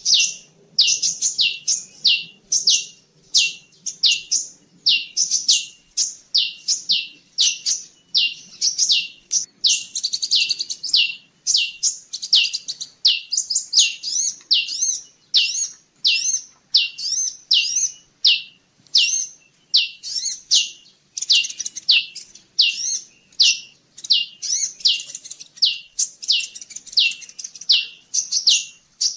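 Bird-lure recording of ciblek (prinia) and kolibri (sunbird) calls: high, sharp chirps repeated about twice a second without a pause, with sharp clicks among them.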